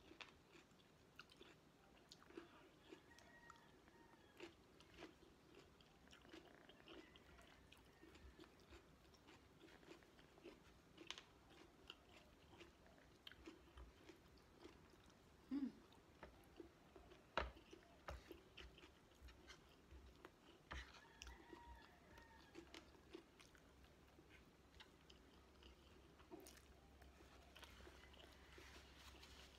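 Quiet close-up chewing and biting of chicken adobo and rice eaten by hand, with small clicks and smacks throughout. A short low hum about halfway through and a sharp click just after it are the loudest sounds.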